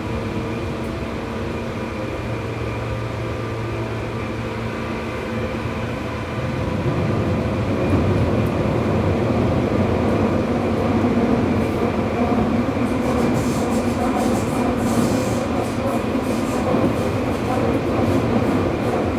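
Tokyu 8500 series subway train running, heard from inside the car. The running noise grows louder about six seconds in, and from about halfway on it is joined by short sharp crackles and rattles from the wheels on the track.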